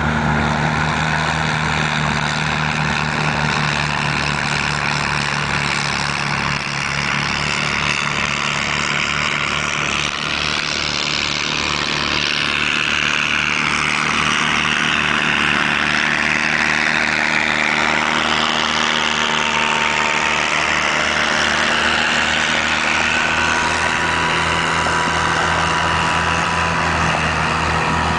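John Deere 322 garden tractor's engine running steadily under load while driving a snowblower attachment, with a rushing noise of snow being thrown that swells partway through.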